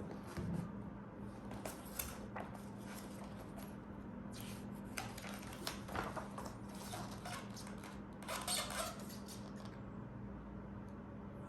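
Handling noise: scattered light clicks and small metallic rattles, with a busier cluster about eight seconds in, over a steady low hum.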